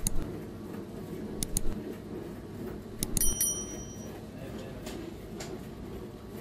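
Bakery work sounds over a steady low rumble: a few sharp knocks, and about three seconds in a brief metallic clink that rings for a moment.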